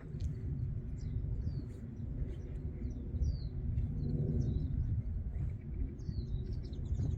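Small birds chirping, many short high notes that slide downward, scattered throughout, over a steady low rumble.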